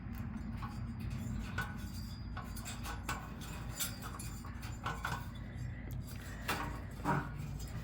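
Light metallic clicks and clinks, scattered a few a second, of stainless steel zip ties and 23-gauge wire hardware cloth being worked against the bars of a steel hitch cargo rack, over a steady low hum.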